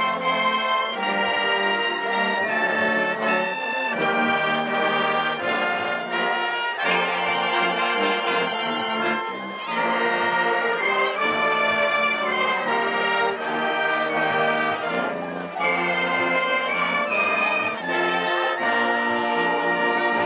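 High school marching band playing a brass-led tune, with trumpets, trombones and sousaphones carrying the melody over the drumline's snare and bass drums.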